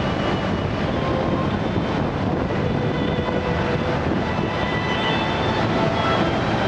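Steady roar of the Klosfossen waterfall, falling water rushing without a break.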